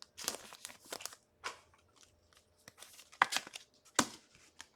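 Trading cards being handled and shuffled: short crinkly rustles and clicks, busiest at first, with a few sharper clicks later.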